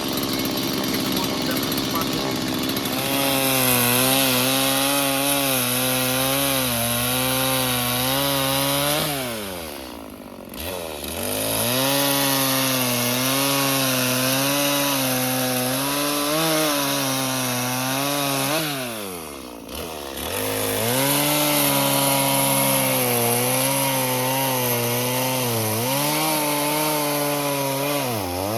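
Stihl MS 170 chainsaw's small two-stroke engine running, then revved up into cutting wood about three seconds in, its pitch wavering under load. It drops back briefly between cuts around ten and twenty seconds in and again near the end, three cuts in all.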